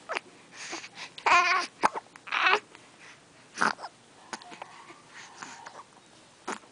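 Short whimpering cries, then a sharp sneeze-like burst about three and a half seconds in, with faint snuffling and wheezy breaths between.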